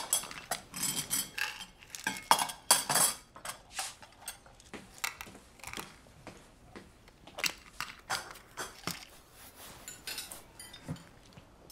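Kitchen clatter: crockery and cutlery clinking and knocking, busy in the first few seconds, then sparser single clicks.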